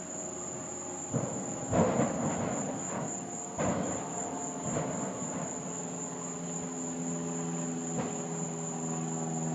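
Insects trilling steadily at night in a high, unbroken tone, broken by several short, sudden thumps. A low, steady droning hum comes in about six seconds in.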